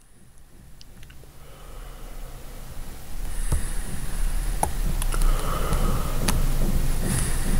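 An ambient soundscape of low rumbling noise fading in over the first three seconds and then holding steady, with scattered sharp clicks.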